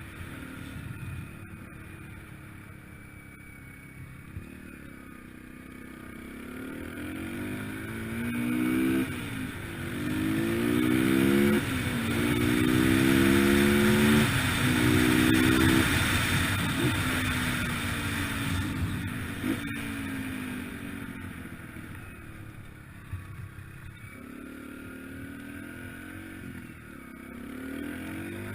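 Yamaha TT-R125LE dirt bike's single-cylinder four-stroke engine accelerating, climbing in pitch several times with a drop at each gear shift, loudest about halfway through. It then eases off to a lower, steadier run.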